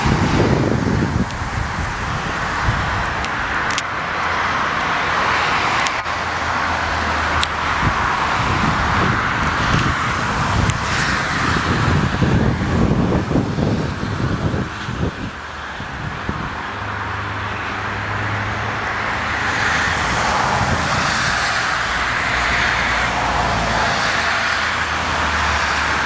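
Gusty wind buffeting the microphone over the steady noise of a twin-engine jet airliner's engines on final approach.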